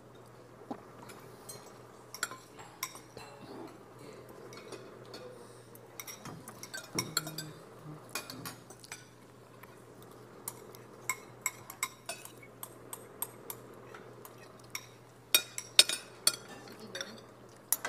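Cutlery clinking against plates as people eat: sharp, irregular clicks that come thicker and louder near the end, over a steady low hum.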